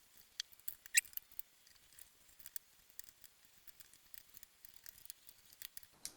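Faint, scattered clicks and small taps from handling the oven's control board, with one slightly louder click about a second in, as the board is eased up out of its plastic retaining clips.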